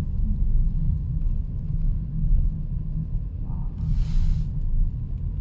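Steady low rumble of a car's engine and tyres, heard from inside the cabin as the car drives slowly. A brief hiss rises and fades about four seconds in.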